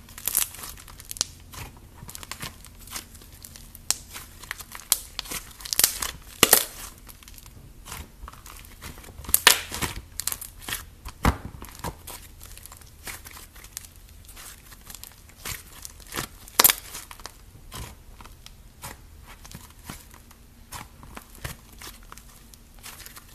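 Soft white slime being squeezed, stretched and folded by hand, giving irregular sticky crackles and clicks with a few louder snaps spread through.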